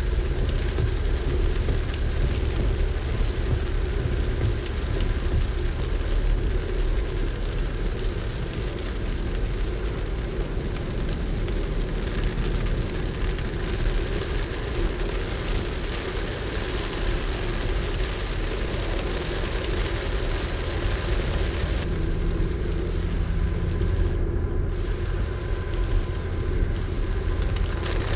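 Steady road and engine rumble heard from inside a moving car driving in rain, with rain hissing on the car.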